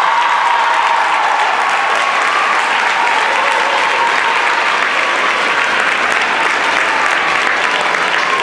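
Audience applauding steadily: dense clapping from a large crowd.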